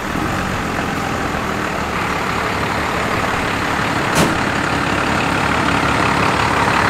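12-valve Cummins diesel pickup running as it drives up and pulls to a stop, getting slightly louder as it nears. A brief sharp noise sounds about four seconds in.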